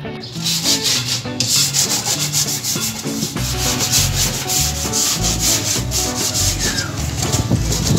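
Hand sanding of a wooden computer tabletop with a sheet of sandpaper: quick back-and-forth scratchy strokes, several a second, getting louder about a second and a half in, as the surface is sanded down ahead of varnishing.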